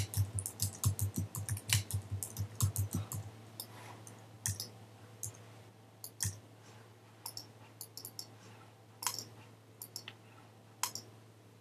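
Computer keyboard typing: a quick run of key clicks for about three seconds, then scattered single keystrokes with pauses between them.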